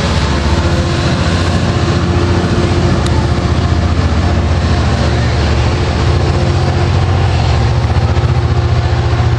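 Diesel locomotive engine running steadily at the platform, a loud, deep, even throb with no change in speed.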